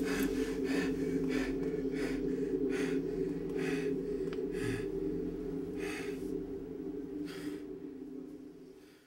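A man's heavy, gasping breaths that start quick and slow to long gaps as he goes under sedation, over a steady low hum. The sound fades out near the end.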